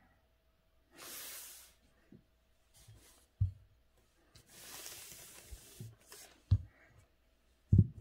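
Brush and paper handling at a calligraphy table: two stretches of soft rustling, scratchy hiss from the brush and paper moving, with three short dull knocks from handling near the middle and end.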